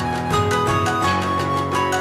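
Background music: held melody notes over a steady beat.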